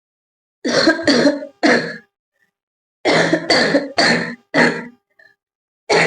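A woman coughing on purpose in short bouts: three coughs about a second in, four more after a pause, and another bout starting near the end. Her throat is already a little hoarse.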